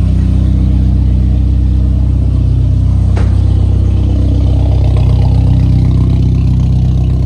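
BMW engine with a freshly installed downpipe idling steadily, its exhaust note loud and even.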